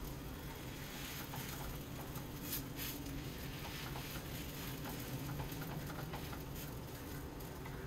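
Bread-and-potato discs shallow-frying in oil in a pan: a low, steady sizzle with scattered small crackles and pops, over a low steady hum.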